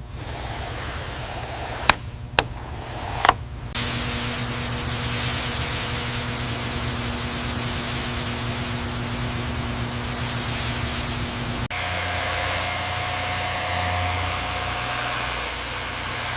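Steady machine-like hum with a hiss. Three sharp clicks come near the start, then a steady low tone sets in. About twelve seconds in, the sound cuts abruptly to a different hum with a higher tone.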